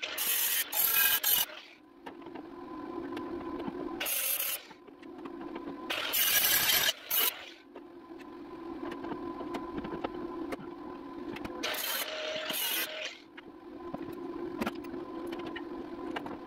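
A hand-held power grinder working sheet metal in several short bursts, each under about a second and a half, with a steady hum underneath between the bursts.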